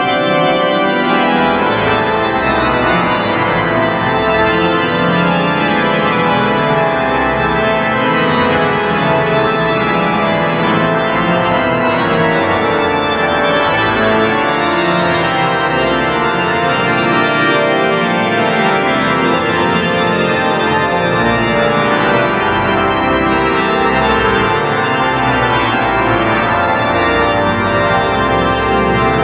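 Pipe organ playing a loud, full texture of sustained chords and moving notes without a break.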